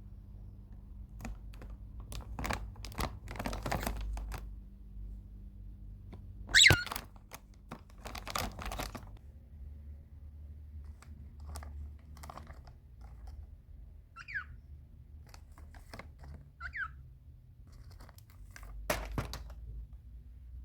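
Cockatiel rustling and tapping about, with scattered clicks and crinkling. There is one loud, sharp call about a third of the way in and two short falling chirps later on.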